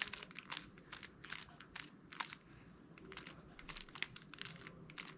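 Rubik's cube layers being turned in quick succession through an algorithm: an irregular run of light plastic clicks and clacks, several a second, some bunched in fast clusters.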